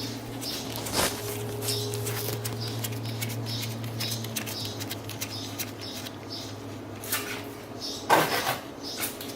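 Scattered metal clicks and knocks of hand tools working at the 4Runner's front differential to drain its fluid, with a louder clatter about 8 seconds in, over a steady low hum that stops about halfway.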